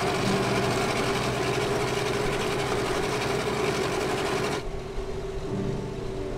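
Two small outboard motors running steadily and driving the catamaran, heard close up over the churning water of their propeller wash. About four and a half seconds in, the wash noise drops away suddenly and a quieter, steady engine hum continues.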